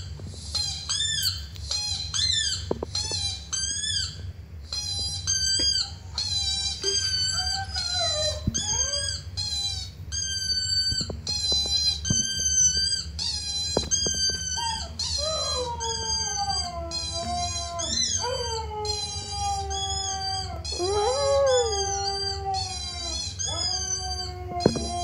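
Recorded huskies howling, played back from an online video: short rising yips about twice a second for the first half, then long falling howls with more than one dog at once from about halfway through, over a low steady hum.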